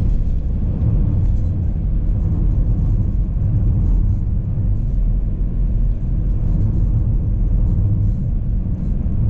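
Volvo XC90 driving at a steady speed, heard from inside the cabin: an even low rumble of engine and tyre noise.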